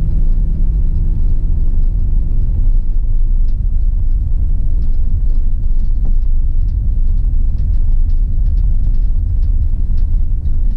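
Steady low rumble of a vehicle's engine and tyres heard from inside the cabin while driving slowly on a paved road, with a faint engine hum in the first couple of seconds.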